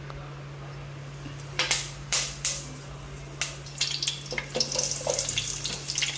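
Hot cooking oil in a pan spitting and sizzling as food goes in: a few sharp bursts of spitting, then continuous crackling frying from about the middle on, growing louder.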